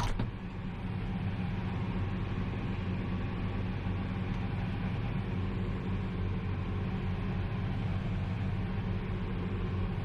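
Large tractor's diesel engine running steadily under load, a low even drone.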